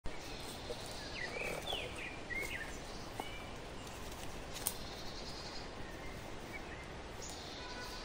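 Forest ambience: wild birds call in short, curving chirps, clustered in the first few seconds and again briefly later, over a steady outdoor hiss. A couple of sharp clicks stand out.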